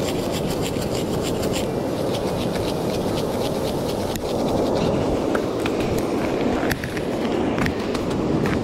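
Crushed shell grit crunching and scraping in short clicks as a PVC rod-holder pipe is twisted and pushed down into the beach by hand, over a steady rush of wind and surf.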